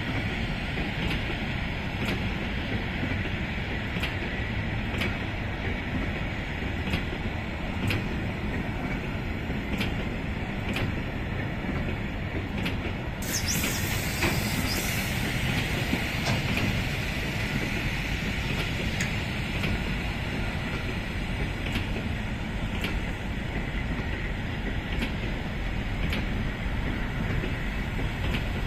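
Train of bulk hopper wagons rolling slowly by, pushed by an ST44 diesel locomotive: wheels click over the rail joints about once a second over a steady low rumble. A short high hiss comes about 13 seconds in.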